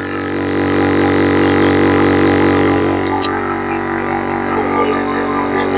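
Budget water-cooled high-pressure PCP airgun compressor running under load, its piston pumping air into a storage tank with the bleed valves closed. It is a steady, loud electric-motor drone made of several held tones.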